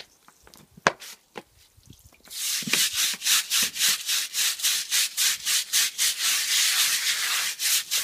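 Stiff bristle brush scrubbing cola into an oil stain on wet concrete. A few light knocks come first, then about two seconds in the brush starts rapid back-and-forth strokes, about four a second.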